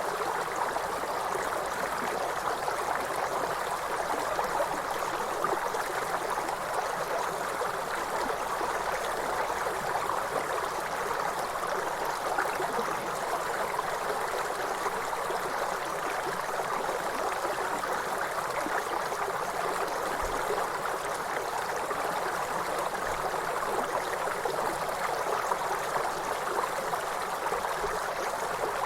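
River water flowing, a steady rushing and gurgling that stays even throughout.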